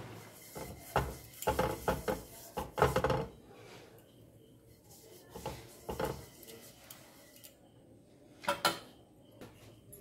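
Kitchen utensils clinking and knocking against a bowl and a non-stick frying pan while the pan is oiled with a silicone brush: a quick run of knocks in the first few seconds, then a few scattered taps.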